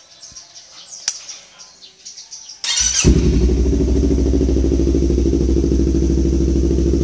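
Yamaha MT-25's 249 cc parallel-twin engine, fitted with an R9 H2 full-system aftermarket exhaust, is started on the electric starter about three seconds in: a brief starter whir, then it catches and idles steadily. Before the start, birds chirp faintly.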